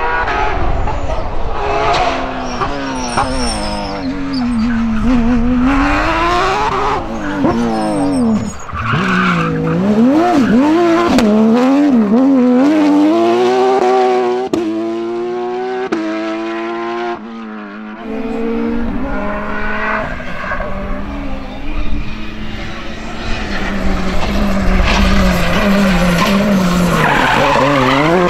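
Several rally cars driven flat out on a tarmac stage, one after another: a Porsche 911 GT3 rally car and then a Citroën C3 R5, their engines revving up and dropping back again and again through gear changes and braking.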